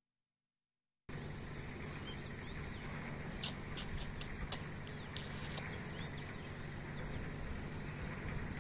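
Outdoor ambience that cuts in abruptly after about a second of dead silence: a steady hiss with faint bird chirps and a few short clicks near the middle.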